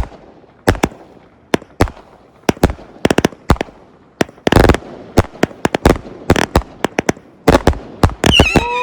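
A fused board of consumer firework cakes firing a 218-shot finale: an irregular string of sharp bangs a few a second, with denser volleys about halfway and near the end. A high held tone comes in near the end.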